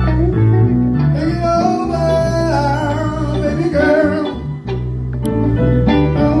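Live band playing a slow blues-soul groove: bass guitar under a lead melody that bends and slides in pitch.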